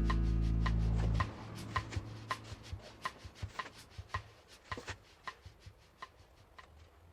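Background music holds a chord and stops about a second in. A run of light, sharp ticks follows, about two a second at first, then less regular and fading away.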